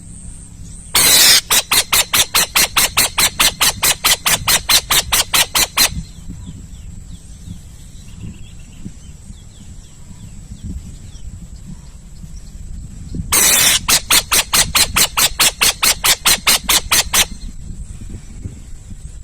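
An owl giving two harsh, rasping calls, each a quick series of pulses at about six a second that lasts four to five seconds.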